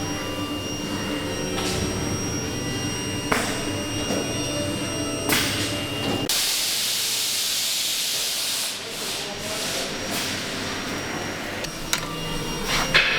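Steady workshop hum with a few sharp knocks. About six seconds in, a loud, high rushing hiss starts suddenly and eases off a couple of seconds later.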